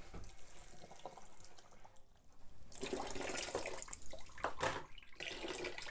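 Kitchen tap running, water splashing into a container, starting a little under three seconds in and breaking off briefly near the end.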